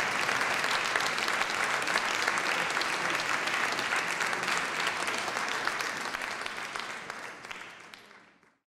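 Audience applauding, a dense steady clapping that fades out over the last couple of seconds.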